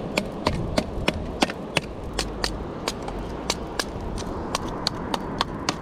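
Machete chopping wooden sticks for a makeshift grill: a run of sharp knocks, about three a second.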